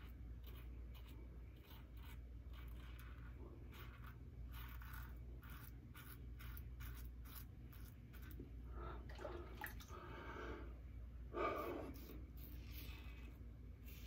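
Double-edge safety razor (RazoRock Lupo.95) scraping through lathered stubble in short, quick strokes, a faint crackly scratching. A brief louder sound comes about eleven seconds in.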